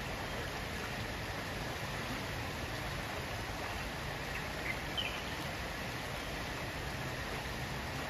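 Steady rushing of a swollen, muddy river running fast. Two brief high chirps sound about halfway through.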